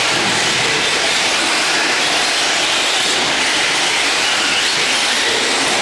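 Radio-controlled trucks racing: a steady, loud mix of motor whine and tyre noise, with a faint rising whine a little after four seconds in.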